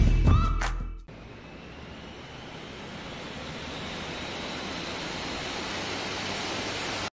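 A swelling whoosh of noise, a sound-effect riser, builds slowly with a faint rising whistle and cuts off abruptly at the end. It follows about a second of gliding electronic effect tones dying away.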